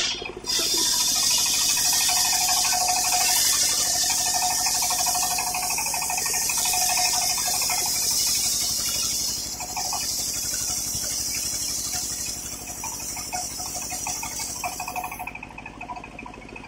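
Large circular sawmill blade ripping lengthwise through a thick teak beam, a steady high-pitched hissing cut. The cutting noise drops away about fifteen seconds in.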